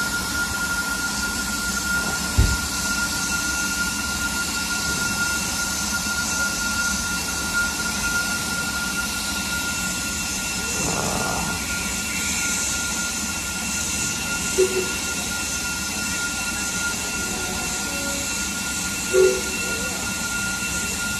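BR Standard Class 9F 2-10-0 steam locomotive standing in steam, hissing steadily with a thin steady tone running through the hiss. A single thud about two and a half seconds in, and two smaller knocks later.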